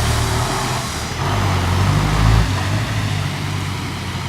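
LiAZ-5292 city bus engine running, heard from inside the passenger cabin: a steady low hum with road and cabin noise over it.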